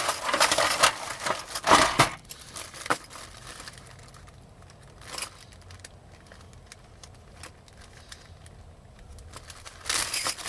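Rustling and crinkling for about two seconds, then a couple of light clicks and a quieter stretch, with more rustling near the end: a locksmith rummaging through his supplies to fetch a new pre-cut key.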